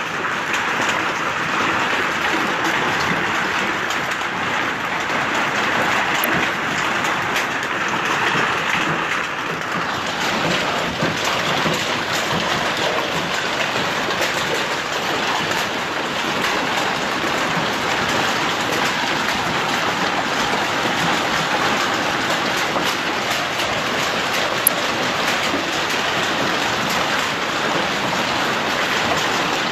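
Hailstorm: large, egg-sized hailstones and rain pelting down steadily, a dense patter of impacts on the wet ground. One sharper knock sounds about three-quarters of the way in.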